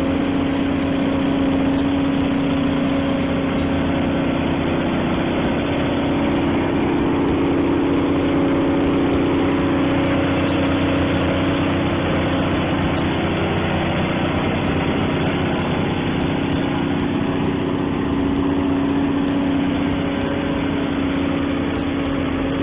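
John Deere forestry forwarder's diesel engine running steadily under load as the machine works bogged down in deep mud.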